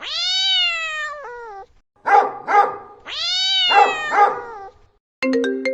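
A cat meowing twice, each a long drawn-out meow falling in pitch, with two short sharp calls around each meow. Near the end an iPhone ringtone melody starts in plucked, marimba-like notes.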